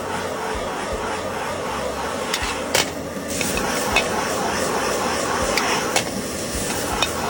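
Instant noodles and kelp being stir-fried in a pan: a spatula scraping and tossing, knocking sharply against the metal a few times, over a steady frying hiss.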